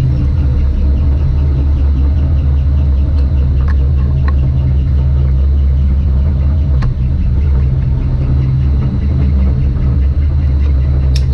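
Metal lathe running steadily, spinning an aluminum tube in its chuck: a continuous motor and gear hum, with a few light clicks.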